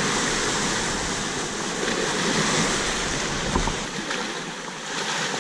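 Shallow surf washing and splashing around a landed shark as it is held in the wash, a steady rush of water with one brief knock a little past halfway.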